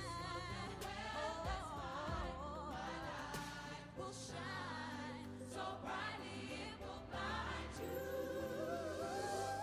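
Background music with a singing voice, several voices together in places, over a steady bass.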